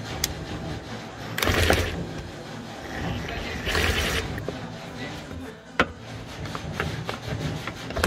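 Makita cordless impact driver driving bolts in two short bursts, about a second and a half in and again near four seconds, with a few sharp clicks of the tool and fittings between them.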